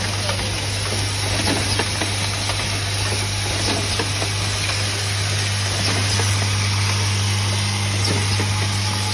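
Automatic hinge assembly machine with a vibratory bowl feeder running: a steady low hum under an even hiss, with light scattered ticking of small steel parts and mechanisms.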